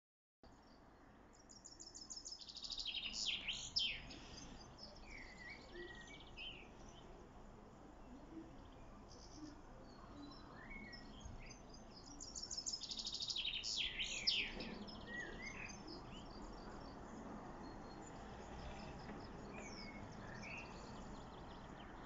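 Songbirds singing, among them a common blackbird (Amsel). Two loud, quick song phrases with high twittering stand out, about two seconds in and again about halfway, with softer chirps and short warbles between.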